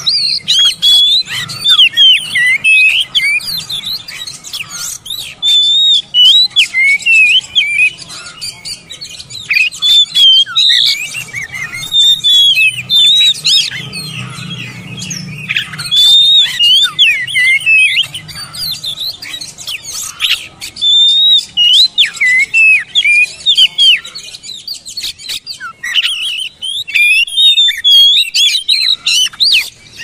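Oriental magpie-robin singing: quick, varied whistled phrases that rise and fall in pitch, in bursts with short pauses, mixed with sharp clicking notes.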